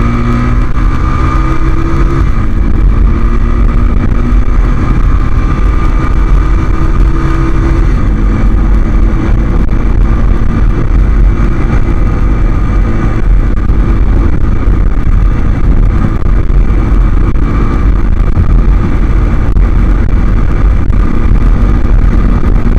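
A 250 cc ATV engine running hard while riding, with a constant loud rumble and the engine pitch shifting up and down a few times.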